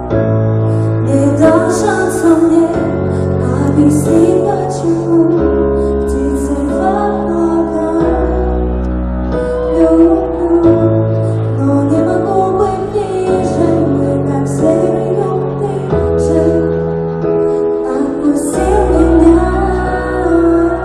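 Amplified live music in a concert hall: a woman sings a slow melody into a microphone over held bass and keyboard chords that change every second or so.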